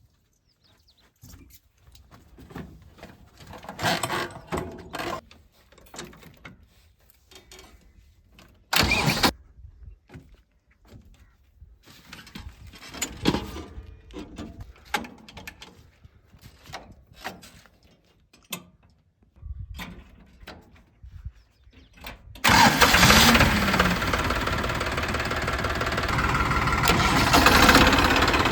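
Irregular clattering and knocks, with one short loud burst about nine seconds in. About 22 seconds in, a diesel engine starts abruptly, rises briefly in pitch and then runs loud and steady.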